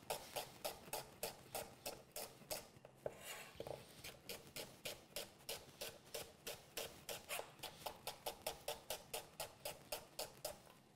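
Chef's knife slicing an onion thinly on an end-grain wooden chopping board, each cut ending in a light tap of the blade on the wood, about four cuts a second in a steady rhythm with a short break about three seconds in.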